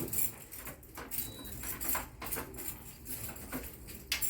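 Irregular clicks and light clattering, a few sharper knocks among them, over a low steady hum.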